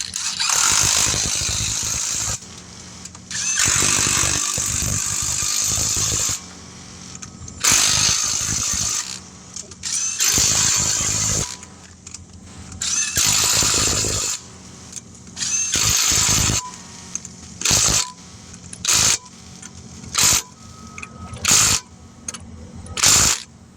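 Impact wrench running the wheel's lug nuts on in several bursts of one to three seconds, then five short blips near the end as the nuts are snugged tight.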